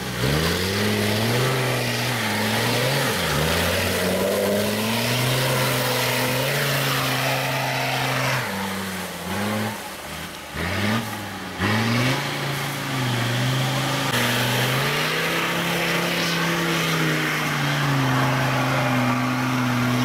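Off-road 4x4 engine revving hard under load, its pitch rising and falling repeatedly as the truck works through mud and up a steep slope, with a few sharp drops in revs partway through and steadier high revs near the end.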